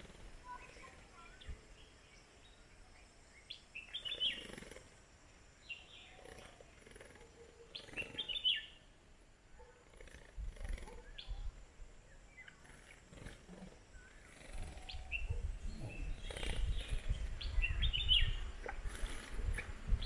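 Red-whiskered bulbuls chirping in short clusters of bright notes, three times: about 4 seconds in, about 8 seconds in and again near the end. A low rumble builds up in the second half.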